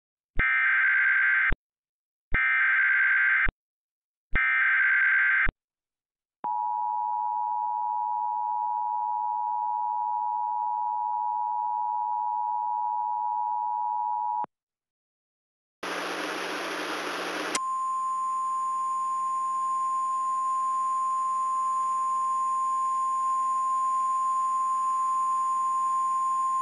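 Emergency Alert System tones for a flash flood warning: three one-second bursts of SAME header data, then the steady two-tone EAS attention signal for about eight seconds. After a brief burst of static comes the steady single-tone NOAA Weather Radio alert tone over radio hiss.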